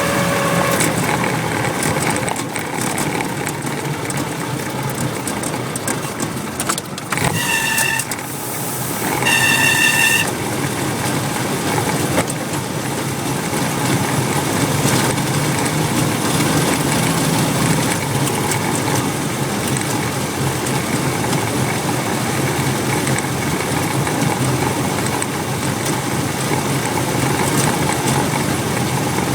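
Willys MB's four-cylinder Go Devil flathead engine running steadily, with a pitched squeal from the clutch group: once, ending about a second in, then two short, higher squeals a little past the middle. The squeal comes a thousand miles after a full rebuild, and the owner takes it for the throwout bearing, or possibly the pilot bearing in the flywheel.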